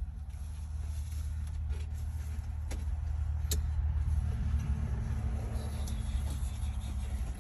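A motor vehicle's engine running as a low, steady rumble that grows louder over the first few seconds, with two sharp clicks near the middle.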